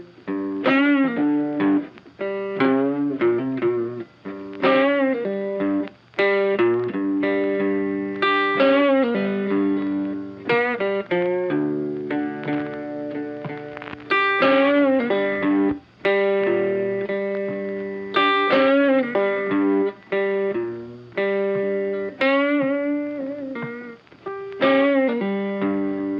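Background music: a lead electric guitar playing a melody with bent notes and vibrato, with effects on it.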